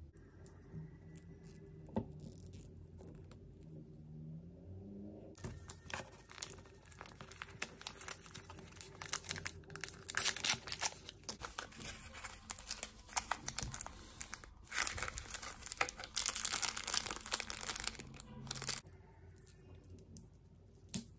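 Plastic wrappers of surprise toy packets being torn open and crinkled by hand. The crackling starts about five seconds in, comes in dense bursts, and stops shortly before the end.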